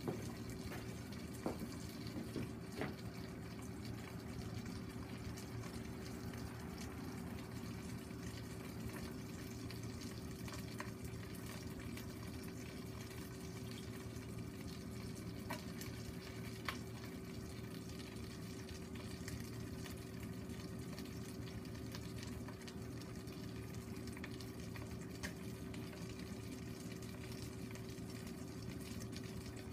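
Food sizzling and bubbling steadily in a wok over a charcoal shichirin, with a few faint pops and clicks.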